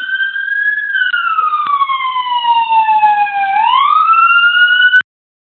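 Police car siren in a slow wail: its pitch rises, falls over about three seconds, then rises again before cutting off suddenly near the end.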